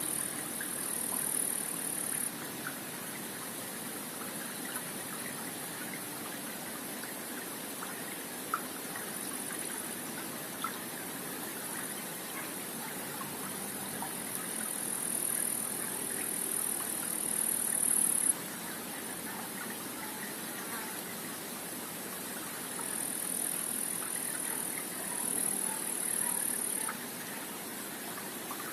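Stream water flowing below a pond dam: a steady rushing. A high, thin buzz comes in three spells of a few seconds each, at the start, past the middle and near the end, each stopping abruptly.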